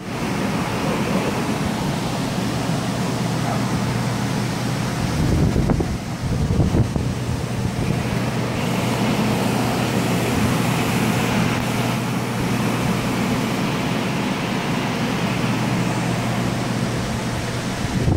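Centrifugal air mover (carpet-drying blower) running steadily: a loud rush of air with a constant low hum beneath it. About six seconds in, the airflow briefly buffets the microphone.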